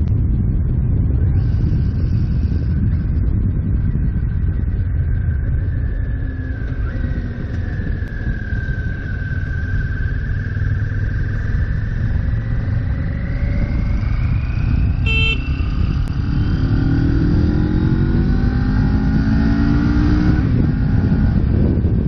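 CFMoto 650GT's 649cc water-cooled parallel-twin engine under way, heard from the saddle with heavy wind noise. The engine note drops as the bike slows, then climbs again in several rising steps through the gears over the last few seconds as it accelerates hard.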